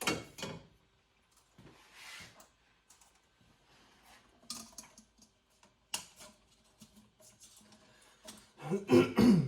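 Parts being handled by hand: scattered clicks and rustles, with a sharp click about six seconds in and a louder clatter of knocks and scraping near the end.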